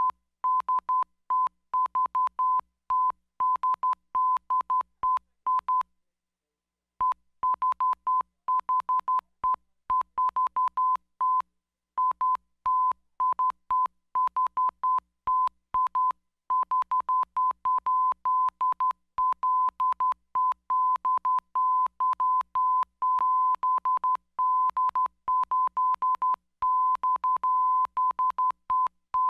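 Morse code sent as a single steady beep of about 1 kHz, keyed on and off in rapid short and long pulses grouped into characters, with a pause of about a second near the quarter mark.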